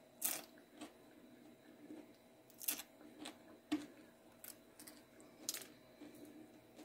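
Crisp crunches of a fried sardine being bitten off its backbone: about seven short, sharp crunches spread over several seconds, with soft chewing between.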